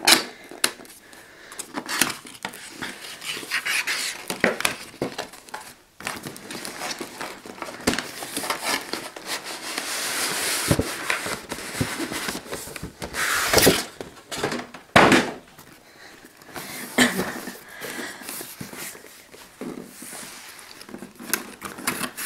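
Cardboard packaging being handled: a tight outer sleeve scraped and slid off a cardboard box, with rubbing, rustling and scattered knocks and taps of the box. The loudest scraping comes in the middle of the stretch.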